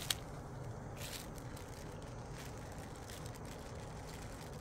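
Quiet steady room hum with a few faint light clicks and rustles as embroidery floss skeins are handled.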